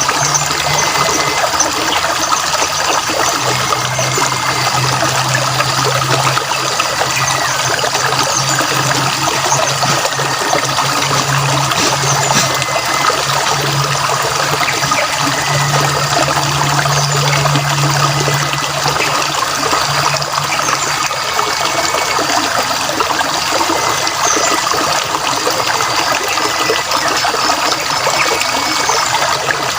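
Stream water trickling and flowing steadily. A low steady hum runs under it for much of the first two-thirds, then stops.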